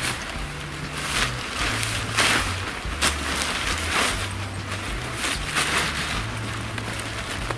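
Oxford 200 tent fabric of an umbrella-type winter fishing tent rustling and swishing as it is gathered and wrapped around the collapsed frame, a handful of separate swishes, over a low steady tone that shifts between a few pitches.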